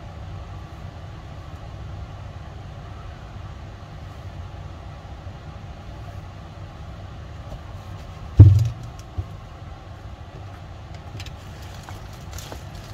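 Steady low rumble of background noise, with one loud thump about eight seconds in and a lighter knock just after it.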